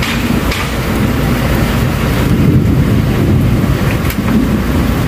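Steady, loud low rumble of outdoor noise with a thinner hiss above it.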